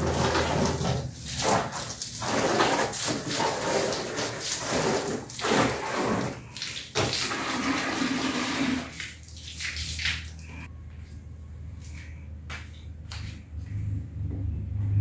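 Garden hose running, its water splashing on a plastic doghouse and the tiled floor, until it stops about nine seconds in. After that come a few light knocks and clicks.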